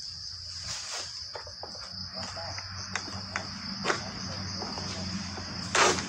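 Steady high-pitched insect chorus with scattered clicks and knocks from an oil palm harvesting sickle on its long pole working at a stuck fruit bunch in the palm crown. The loudest knock comes near the end.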